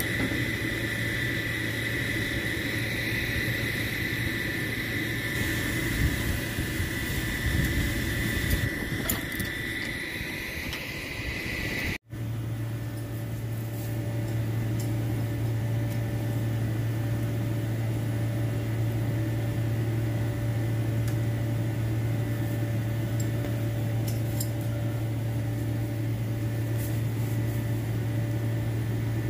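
A flatbed tow truck's engine running steadily with a low, even hum. In the first part a steady high whine and a few bumps sit over it. A short dropout about twelve seconds in, after which the low hum carries on alone.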